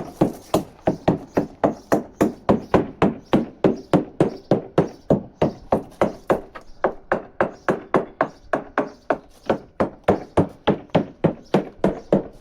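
Rapid, even tapping on a sailboat's fiberglass hull with a hammer, about three to four sharp knocks a second, during a survey tap test. The tapping sounds out the hull for dull, thudding spots that would mean the fiberglass laminate is separating.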